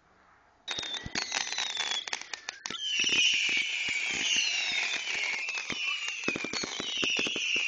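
Fireworks going off: a sudden start about a second in, then a run of sharp cracks and pops under several overlapping whistles, each falling in pitch.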